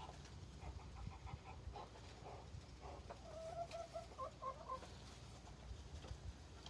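Chickens clucking: a run of short calls, then a longer drawn-out call about three seconds in, followed by a few short notes.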